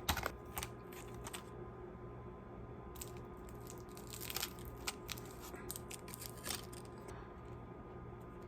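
Small plastic handling noises: scattered light clicks and crinkling rustles as a memory card is put into its case, over a low steady room hum.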